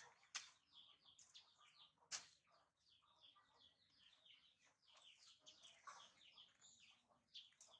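Faint, busy chirping of small birds, many short quick chirps overlapping, with two sharp clicks about half a second and two seconds in.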